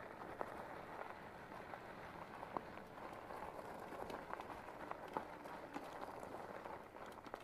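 Lectric e-bike tires rolling over a gravel road: a steady crunching with a few sharp ticks of small stones scattered through it.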